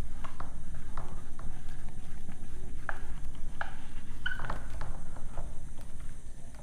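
Whiteboard marker squeaking and scratching on the board in short, irregular strokes as a word is written, over a steady low hum.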